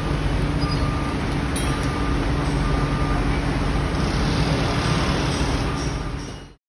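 Heavy construction machinery running on a building site: a steady mechanical rumble with a hum, and a faint beep repeating about once a second. The sound cuts off abruptly near the end.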